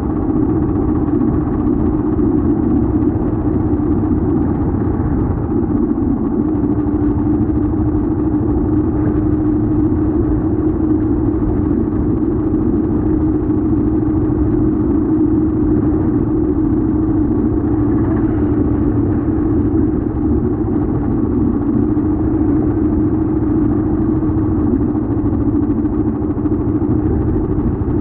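Vehicle engine and road noise while driving at a steady pace: a constant engine hum over low rumbling tyre noise.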